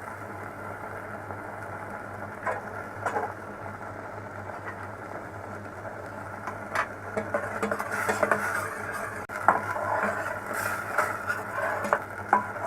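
A spoon tapping and scraping in a pan while gravy is stirred, the taps scattered and busier in the second half, over a steady low hum and hiss.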